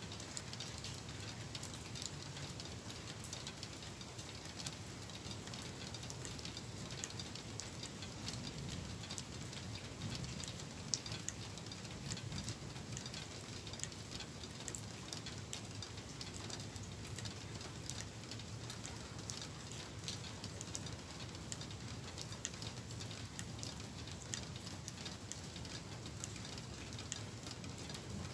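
Light rain falling as a storm moves in: steady patter with many scattered drops ticking on nearby surfaces, over a steady low rumble.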